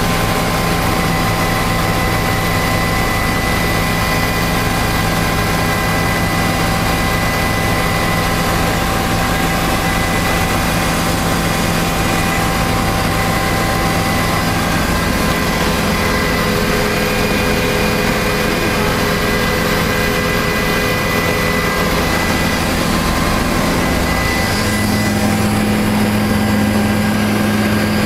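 Tour helicopter's engine and rotor noise heard inside the passenger cabin: a loud, steady drone with several steady whining tones. About 25 seconds in, the low hum shifts slightly higher in pitch.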